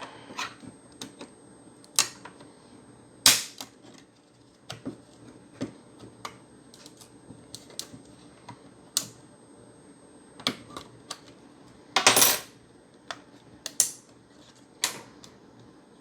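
Irregular sharp plastic clicks and snaps from prying at the clipped plastic case of an Xbox One S internal power supply. The loudest snap comes about three seconds in, and a short cluster of clicks about twelve seconds in.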